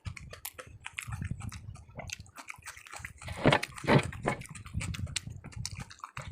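Close-miked chewing and wet mouth smacking while eating rice and curry, with many small clicks and two louder bites a little past halfway.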